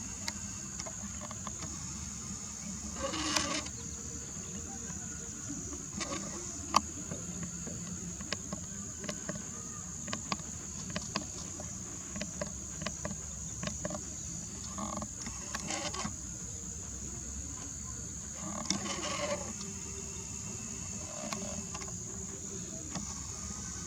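Steady high-pitched insect drone, like a chorus of crickets, with scattered small clicks and two brief noisy bursts, one a few seconds in and one near the end.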